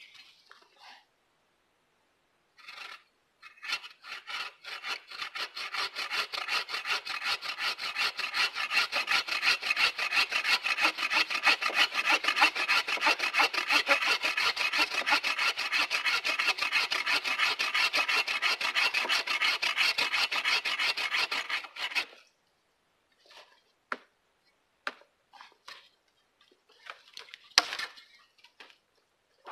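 Agawa Canyon Boreal21 folding bow saw cutting across a log in quick, steady back-and-forth strokes that stop suddenly about two-thirds of the way in. Scattered light knocks follow, with one sharper knock near the end.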